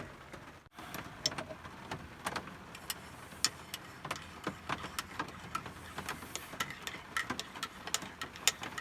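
Raindrops dripping irregularly onto a roof, a few sharp ticks each second, over a low steady hum.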